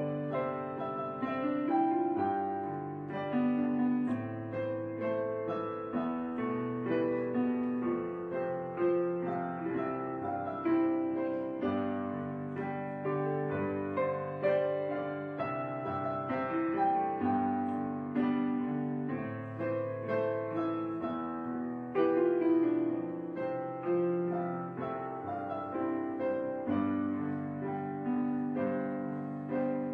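Background piano music: a gentle, steady run of notes and chords, each note fading after it is struck.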